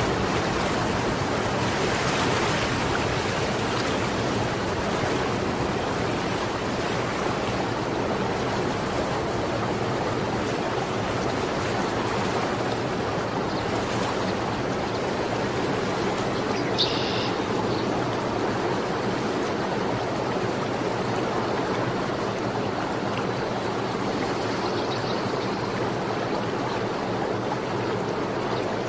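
Steady rushing noise of running water, like a stream, with a brief high chirp about 17 seconds in.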